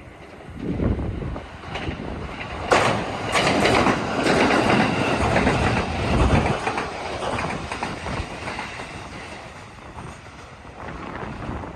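Joban Line electric train passing at speed. The noise comes up abruptly about three seconds in, stays loud for a few seconds and then fades away, with low gusts of wind on the microphone before it.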